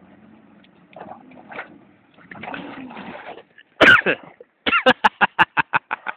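A person's voice close to the microphone: one loud outburst, then a rapid run of short, loud vocal bursts, about five a second.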